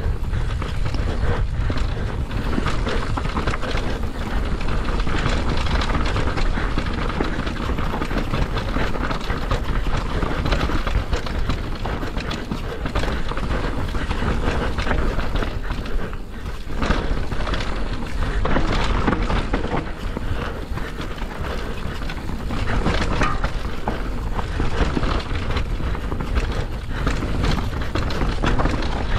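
Mountain bike riding fast down a rough dirt trail, heard from a camera on the rider: wind buffets the microphone over the hiss of the tyres, and the bike's chain and frame rattle over the bumps. It eases briefly about halfway through.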